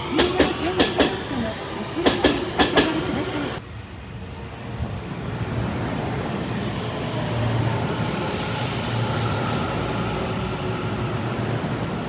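Train wheels clacking sharply over rail joints, several quick knocks in the first three seconds or so. The sound then drops off suddenly and gives way to the steady rumble of a train running, with a low hum.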